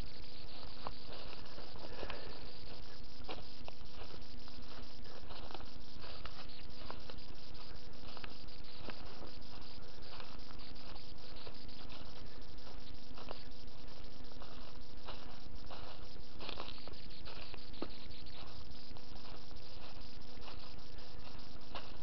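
Footsteps rustling and crackling through leaf litter and undergrowth on the forest floor, as irregular short clicks, over a steady low hum.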